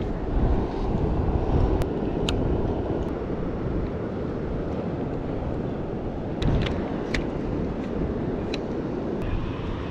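Steady wind rumble on the microphone over ocean surf, with a few light sharp clicks as a fishing rod and reel are handled.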